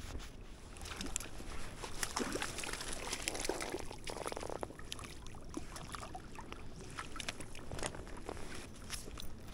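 Water sloshing and splashing, with many scattered clicks and knocks and a denser splash about four seconds in.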